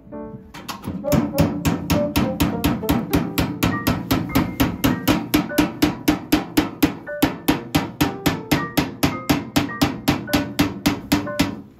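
Background music with a steady, fast drum beat and a melody over it.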